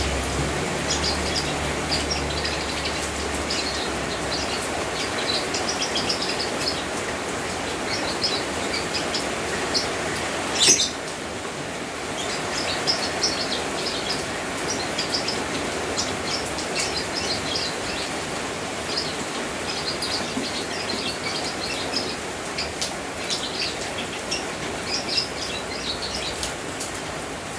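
Steady hiss of falling rain with small birds chirping over it again and again. A single sharp, louder high sound stands out about eleven seconds in.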